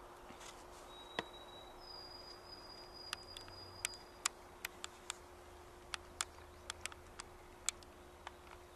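Faint forest ambience with a steady low hum, a thin held whistle that steps up in pitch about a second in, and irregular sharp clicks scattered throughout.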